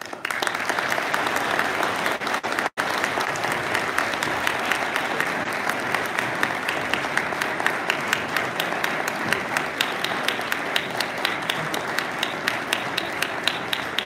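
Audience applauding, starting suddenly and keeping up steadily, with a split-second dropout about three seconds in; individual claps stand out more toward the end.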